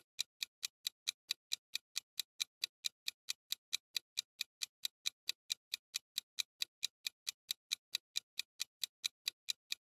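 Countdown timer sound effect: even, clock-like ticks at about four a second.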